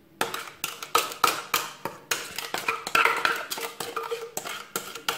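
A kitchen utensil knocking and scraping against a bowl in a steady rhythm, about three to four clicks a second, as whipped egg-and-sugar mixture is scraped into yeast dough.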